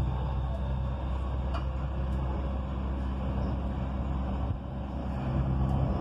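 Dubai Metro electric train running, heard from inside the car: a steady low hum and rumble of motors and wheels on the track, with a few faint ticks. The sound dips briefly about two-thirds of the way through and then builds again.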